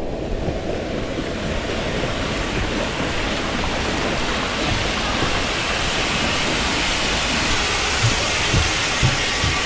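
Steady rush of splashing, pouring water from a waterpark pool and its slide outlets. Near the end, soft low thumps about twice a second: footsteps on the slide tower's stairs.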